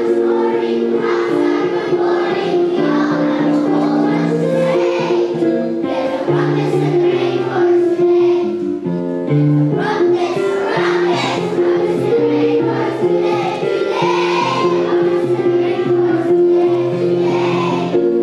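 A choir of young children singing a song over steady instrumental accompaniment.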